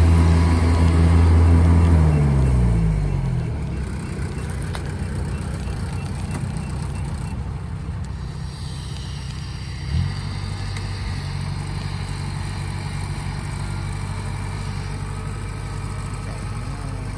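A farm machine's engine running loudly, its pitch gliding down and fading about two to three seconds in. About ten seconds in there is a single thump, then the engine runs on at a steady, lower note.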